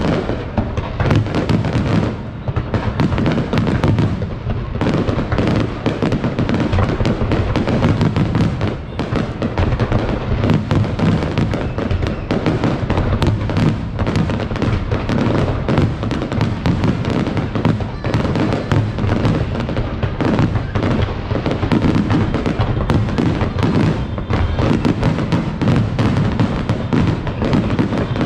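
Aerial fireworks bursting in a dense, continuous barrage of bangs and crackles, with no break.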